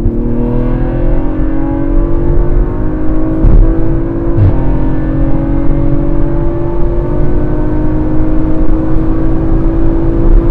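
Audi RS4 B9's tuned 2.9-litre twin-turbo V6 under hard acceleration, heard from inside the cabin, with its note climbing slowly and broken by quick automatic upshifts about three and a half and four and a half seconds in. The car runs a Stage 2 remap with a catless downpipe and the active exhaust in Dynamic mode.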